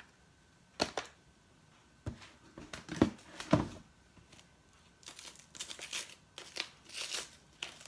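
Plastic food packaging being handled: a few sharp knocks and clicks, then a stretch of crinkling and rustling from about five seconds in.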